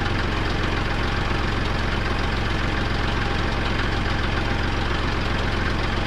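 Kubota tractor's diesel engine idling steadily, heard close up from the tractor itself.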